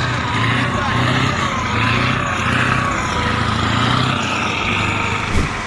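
Tracked all-terrain snow vehicle's engine running steadily as it works through deep snow, with a wavering whine above it. A short knock comes near the end.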